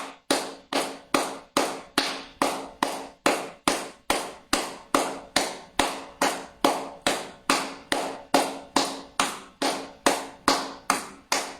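Rhythmic slapping on the crook of the elbow, about three even strikes a second: pāidǎ, therapeutic slapping of the inner elbow.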